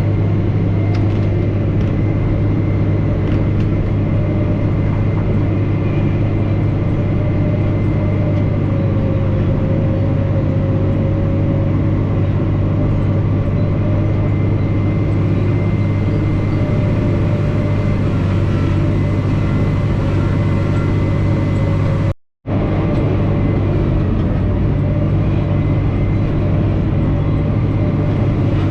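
Komatsu D65 dozer's diesel engine running steadily as the machine pushes dirt: a constant low drone with a thin whine above it. The sound cuts out completely for a split second about three-quarters of the way through.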